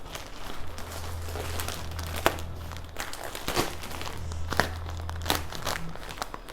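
Packaging crinkling, rustling and tearing as a parcel is opened by hand, with many small irregular crackles.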